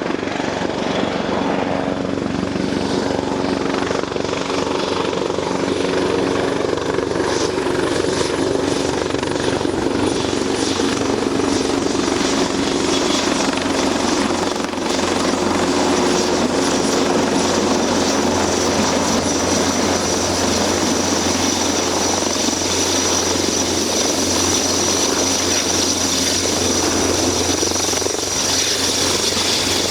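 Eurocopter EC225 Super Puma helicopter coming in to land, its rotor and twin turboshaft engines running loud and steady with a high turbine whine. Near the end the whine drops in pitch.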